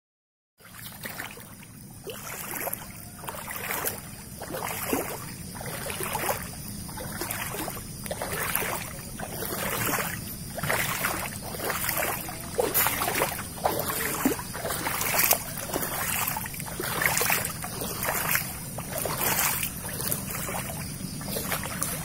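Footsteps wading through shallow floodwater, a sloshing splash with each step about once a second.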